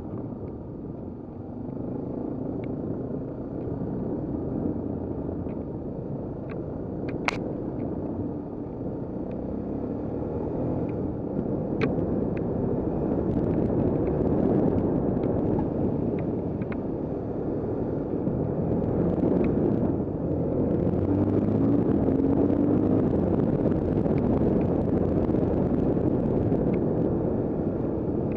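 Off-road trail motorcycle's engine running steadily at riding speed, heard from a camera mounted on the bike, with a few sharp knocks from the ride.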